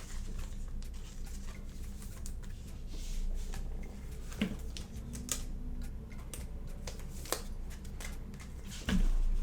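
Basketball trading cards being handled on a table: scattered light clicks and taps as cards are slid and set down, over a steady low hum.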